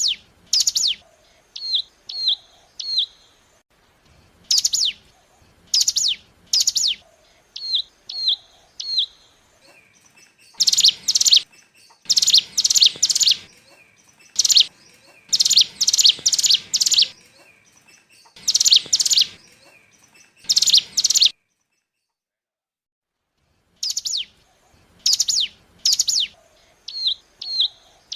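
Ciblek gunung (mountain prinia) lure song: sharp high chirps sweeping downward, alternating with quick trios of short piping notes. A denser, rapid run of calls comes through the middle, then a brief dead gap, after which the chirp-and-trio pattern starts again.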